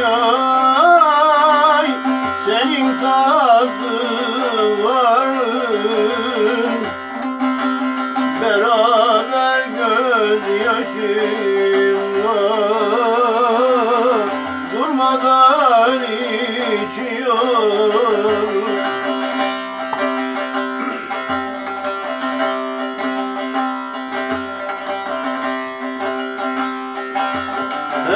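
Bağlama (Turkish long-necked saz) playing a folk melody with sliding ornaments over a steady drone.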